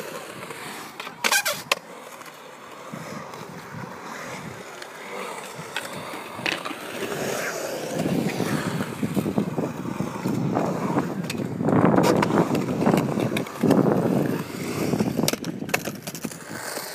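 Skateboard wheels rolling on a concrete bowl, growing louder and loudest in the middle, with sharp clacks of the board against the concrete near the start and again near the end.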